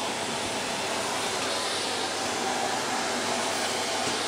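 Vacuum cleaner running steadily as its floor nozzle is pushed over the floor.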